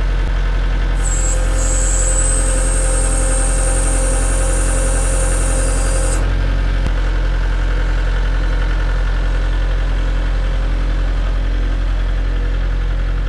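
Kubota L4701 tractor's diesel engine running steadily while its hydraulics lift the BH92 backhoe. A high-pitched whine sits over the engine from about a second in until about six seconds in.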